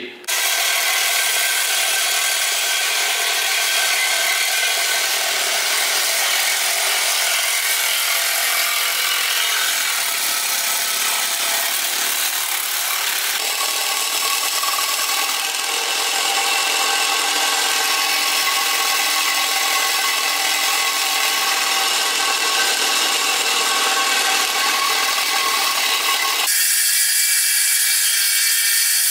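Power tools cutting aluminium for an intercooler: a steady, loud whine with a grinding rasp that changes character about halfway through, as a drill works on the aluminium intercooler pipe, and again near the end, as a circular saw cuts aluminium on the bench.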